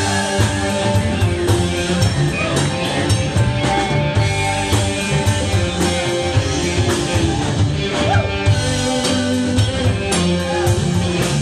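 Live rock band playing: electric guitars and bass over a drum kit beating steadily, with cymbals.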